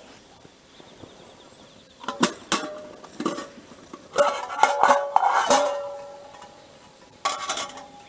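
Metal mess kit being taken apart: the lid and pan clank and clink against each other several times, each knock ringing briefly, with one more clank near the end.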